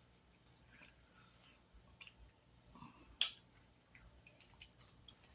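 Quiet eating sounds: chewing with scattered soft wet mouth clicks and smacks, one sharper click about three seconds in.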